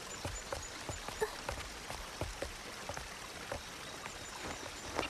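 Water trickling and dripping, with many small scattered drips and a few faint, short high chirps.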